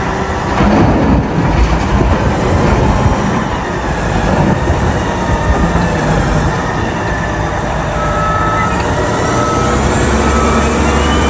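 Caterpillar 990 wheel loader's diesel engine running under load as it dumps a bucket of coal into a truck trailer, the coal pouring in with a heavy rush in the first few seconds. A rising whine comes in near the end.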